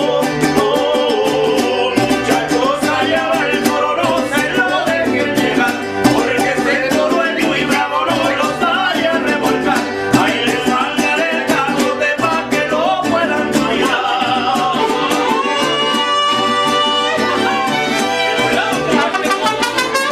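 Mariachi band playing live: violins and trumpet over a steadily strummed guitarrón and vihuela, with the men singing. Long held high notes come in near the end.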